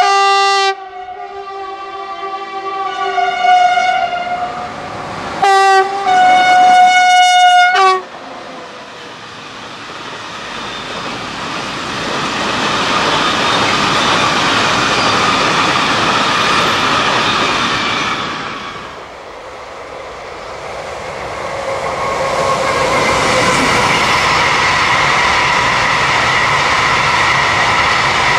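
Freight train locomotive horn sounding: a blast at the start that trails off, then a short blast and a long blast around six seconds in. Then the rolling rumble and clatter of a freight train passing close by, loaded hopper wagons going past, with a second freight train of mixed wagons rolling past near the end.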